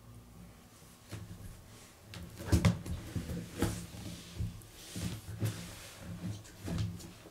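Hand handling a small object beside a cat: a series of light knocks and rustles, the loudest pair about two and a half seconds in, over a faint low rumble.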